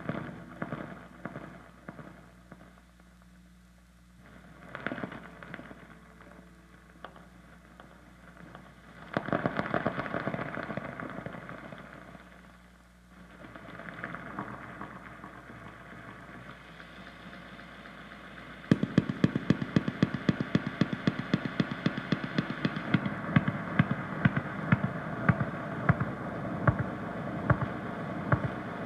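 Free-improvised guitar and drums: sparse scattered hits and held tones at first, swelling into a thicker sustained texture about a third of the way in, then a dense, fast run of percussive strokes over held tones from about two-thirds in.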